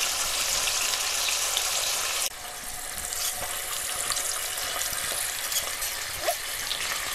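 Chicken pieces and vegetables sizzling in a stainless-steel pressure cooker pot on a portable gas stove as browned chicken is lowered in with metal tongs. The steady sizzle drops suddenly to a quieter level about two seconds in, with a few light clicks later on.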